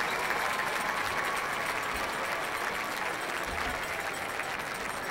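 Large stadium crowd applauding steadily, easing off slightly near the end.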